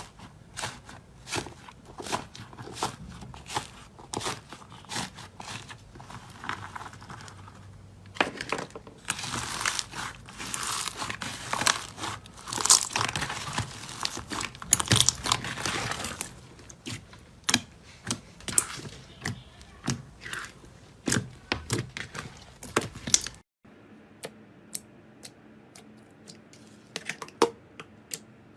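Slime being squeezed and pressed by hand, making a run of sticky clicking pops. From about 8 to 16 seconds in it turns to a denser crinkly crackling, and about 23 seconds in a cut brings a quieter background with more scattered clicks.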